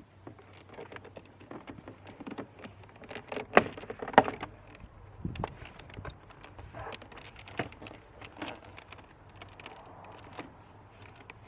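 Scattered clicks and knocks of hands and tools working at a car's door trim panel, with two sharper knocks about three and a half and four seconds in.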